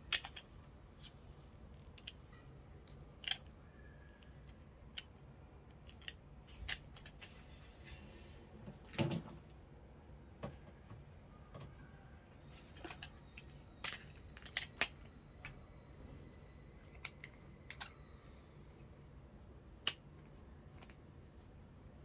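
Scattered small clicks and knocks of a plastic-and-metal phone clamp and ball head being handled on a selfie stick, with a louder knock about nine seconds in.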